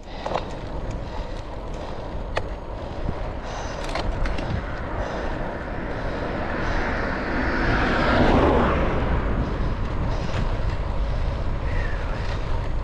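Wind rushing over a handlebar-mounted action camera, with tyre noise from a road bike rolling on tarmac. A few sharp clicks come in the first four seconds, and the rush swells to its loudest about eight seconds in.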